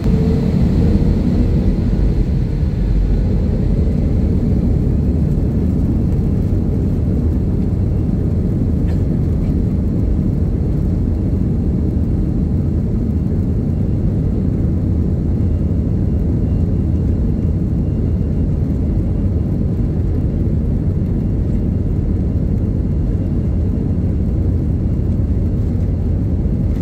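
Jet airliner's engines running as it moves along the runway, heard from inside the cabin over the wing: a loud, steady, deep rumble.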